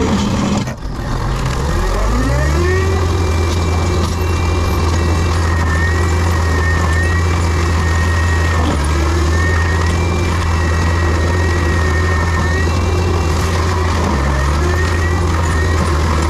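Diesel engine of heavy land-clearing equipment running steadily, with a thin high whine that wavers up and down in pitch over the engine drone. The sound dips briefly about a second in.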